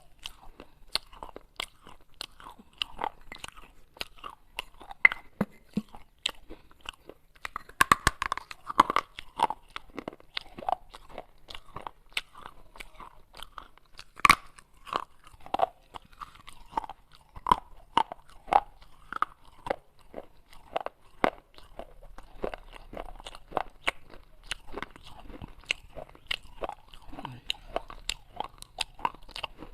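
Pieces of baked clay pot being bitten and chewed close to the microphone: dense, irregular crisp crunches and crackles, several a second, with a few louder snaps.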